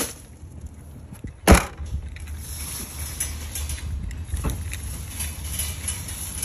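A car's rear hatch shut with one sharp, loud thud about a second and a half in, over a steady low rumble; a softer knock follows a few seconds later.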